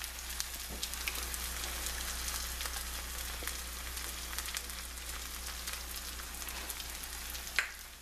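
Egg whites and vegetables frying in a non-stick pan: a steady sizzle with fine crackles. A brief knock near the end.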